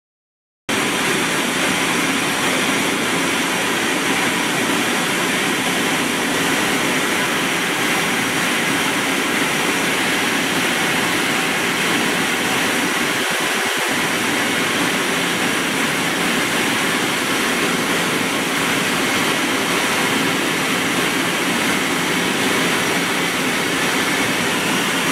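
FPC laser cutting machine running: a steady, loud rush of air from its fans and fume extraction, with no rhythm or tone. It starts suddenly just under a second in and breaks for an instant about halfway through.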